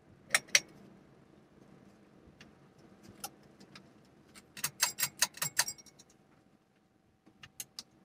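Pull-chain switches of a running Quorum Capri ceiling fan clicking as the chains are pulled, with the metal bead chains rattling: two sharp clicks about a third of a second in, a quick run of clicks around the five-second mark, and a couple more near the end. A faint steady hum from the fan runs underneath.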